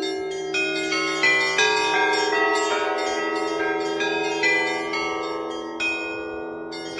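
Russian Orthodox church bells rung by hand: smaller high bells struck in a quick melodic pattern, about three strikes a second, over the sustained ring of a larger bell.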